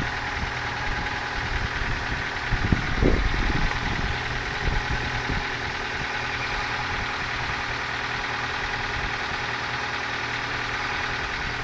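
Ford Focus Mk2 engine idling steadily with a knock, the engine knock that the video is about. A few low thumps stand out in the first few seconds.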